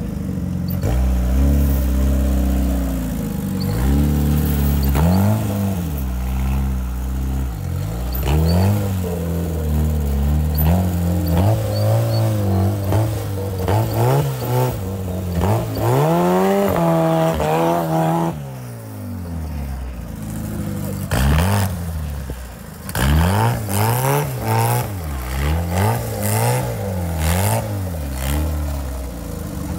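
Off-road buggy engine revving hard in repeated surges, the revs climbing and dropping again and again. It falls back to a lower idle-like note about two-thirds through, then revs in quick blips again, with short sharp bursts of noise near the end.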